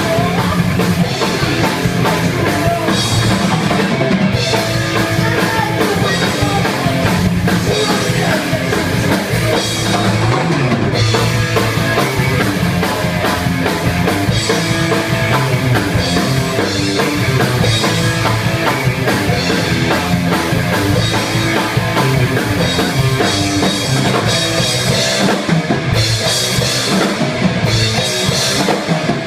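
Rock music with a driving drum kit and guitar.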